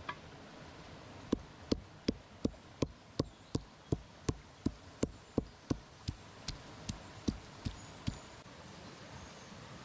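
Knife or cleaver chopping on a wooden board: a steady run of about twenty sharp knocks, close to three a second, stopping near the end.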